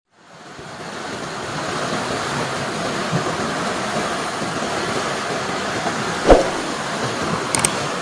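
Steady rushing noise, fading in at the start, with one sharp knock a little after six seconds in.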